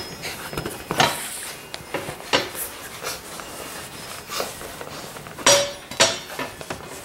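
Labrador puppies playing with plush toys: a handful of sharp knocks and clinks over low scuffling, the loudest about a second in and again a little past the middle.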